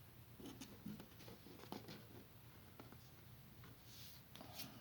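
Near silence with faint rustling and a few light ticks, from Pokémon trading cards being handled and shuffled.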